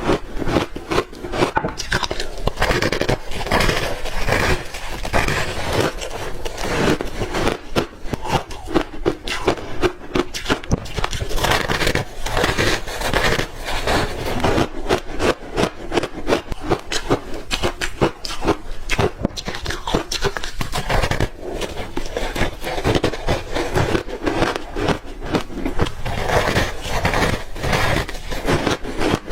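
Close-miked biting and crunching of frozen ice chunks coated in matcha powder: a dense, unbroken run of crackly crunches.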